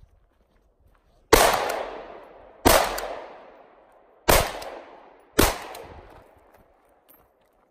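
Four shots from a semi-automatic competition rifle, fired at uneven intervals of about a second to a second and a half. Each shot rings out in a long echo that fades over about a second.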